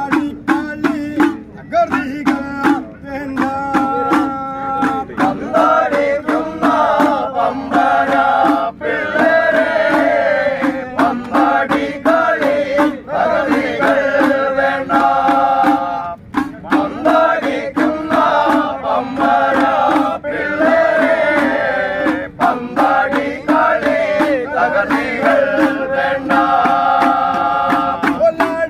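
A group of men chanting an Ayyappa devotional song together, keeping time on small hand-held hourglass drums struck in a quick, steady beat, over a steady low drone.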